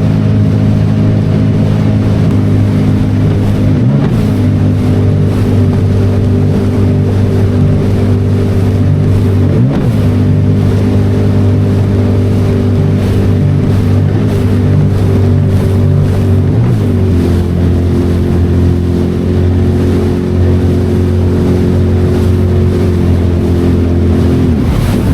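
Jet ski engine running steadily at speed, with a brief dip in pitch several times.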